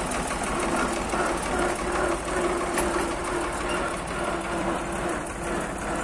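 Old farm tractor's engine running steadily as the tractor pulls away towing a trailer.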